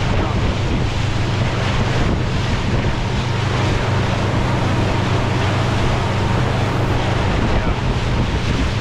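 Boat engine running steadily under way, a constant low drone, with water rushing past the hull and wind buffeting the microphone.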